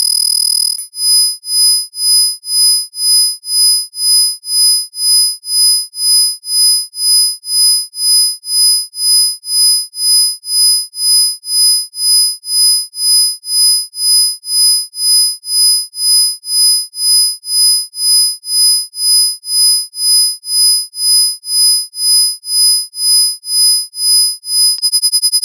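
Electronic pure sine tones, high-pitched and strongest around 5 kHz and 10 kHz, with fainter tones beneath. About a second in they begin pulsing in volume about twice a second, and near the end the pulsing turns much faster.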